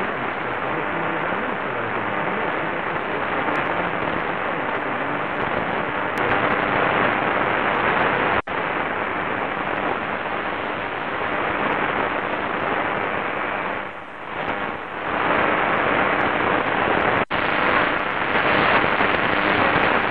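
Qodosen SR-286 portable radio's speaker hissing with medium wave static as it is scanned up the band in 9 kHz steps. The sound cuts out sharply for an instant twice, once at each step to the next channel.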